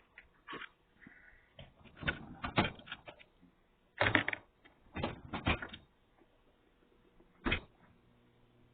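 Irregular knocks and clatters, a few at a time, the loudest in the middle and a single sharp knock near the end, over the faint steady hum of a running microwave oven.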